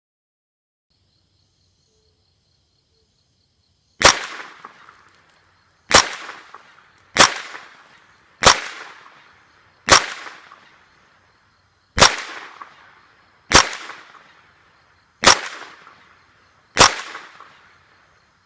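Ruger 10/22 Takedown semi-automatic .22 LR rifle fired nine times at a steady pace, one sharp crack every 1.5 to 2 seconds, each trailing off over about a second. The shots start about four seconds in.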